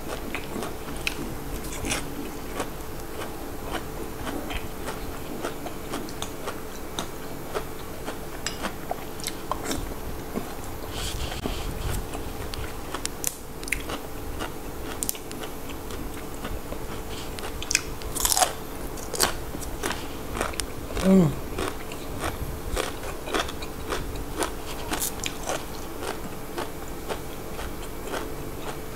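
Close-up chewing and crunching of raw vegetables and chili dip, with crisp bites and wet mouth clicks scattered throughout and a couple of louder crunches past the halfway point.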